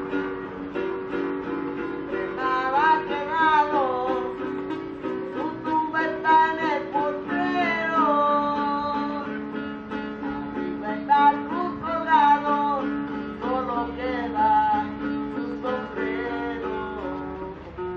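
Acoustic guitar strummed in steady chords, with a voice singing phrases over it every few seconds.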